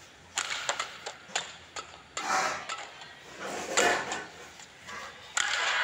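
Badminton rally: sharp racket strikes on the shuttlecock and court-shoe squeaks, with swells of crowd noise, and near the end the crowd breaks into loud, sustained cheering as the point is won.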